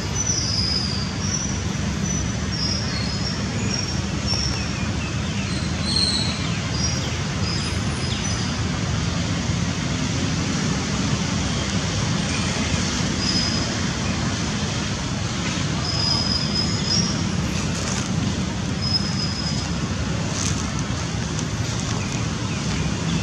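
Steady outdoor background rumble, with faint short high-pitched chirps now and then.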